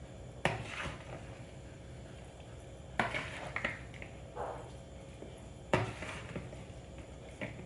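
A kitchen utensil knocking and scraping against a mixing bowl as a botok filling of banana blossom, grated coconut and tofu is stirred gently. There are three sharper knocks about two and a half seconds apart, with softer clinks between.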